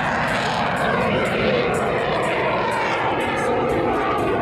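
Jet Waco biplane in a steep climb overhead, its R-985 radial engine and underslung CJ610 turbojet making one steady, loud rush of engine noise.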